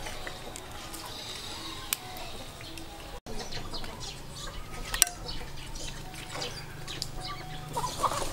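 Chickens and small birds calling and chirping, with a couple of sharp clicks.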